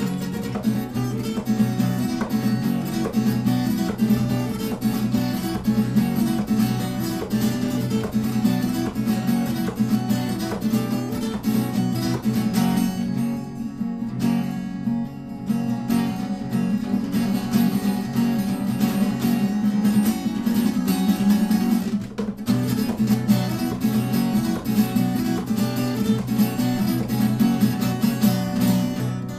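Solo acoustic guitar played live, a steady stream of picked and strummed notes with no singing. The playing turns briefly softer and thinner about halfway through.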